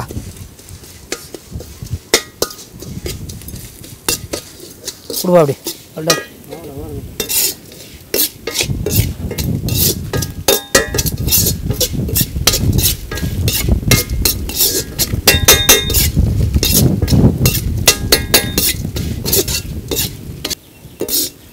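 A long steel ladle scraping and clinking against an iron kadai as a coconut seasoning is stirred and sautéed over a wood fire, with a light sizzle. The strokes come sparsely at first, then as rapid repeated scrapes and clinks through the second half.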